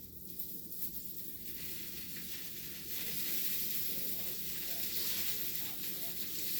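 Strong wind gusting, a steady rushing hiss that grows louder about three seconds in.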